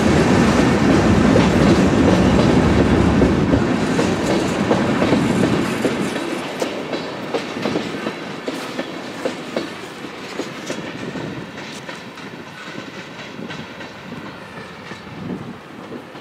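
Freight cars, covered hoppers and tank cars, rolling past at close range with a heavy rumble and sharp wheel clicks. The sound fades from about six seconds in as the end of the train rolls away, leaving scattered clicks.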